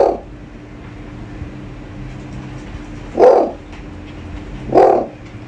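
Owl hooting: short low hoots, one ending just as the sound begins and two more about a second and a half apart past the middle, over a faint steady hum.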